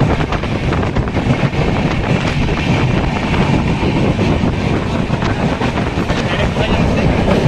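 Train running along the track, heard from on board: a steady, dense running noise with wind buffeting the microphone.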